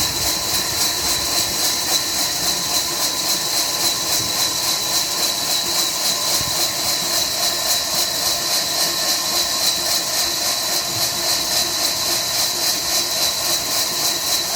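Diesel-powered sawmill machinery running steadily, with a high hiss and a regular pulsing beat.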